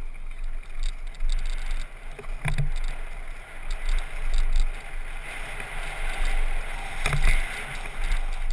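Downhill mountain bike rolling fast over a dirt and gravel trail: tyre noise and drivetrain rattle under steady wind rush on the microphone, with sharp knocks about two and a half seconds in and again about seven seconds in.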